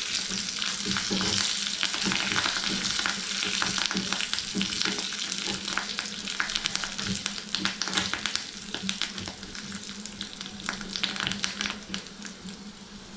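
Freshly washed curry leaves sizzling and crackling in hot oil in a small tempering pan with mustard seeds and garlic-chilli paste, with sharp pops and the scrape of a spoon stirring. The sizzle gradually dies down over the last few seconds.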